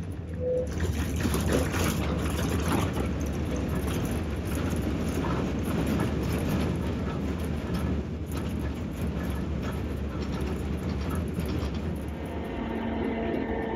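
Heritage tram running on its rails, heard close. A steady low rumble is broken by scattered clicks and knocks from wheels and track, and a steady hum comes in near the end.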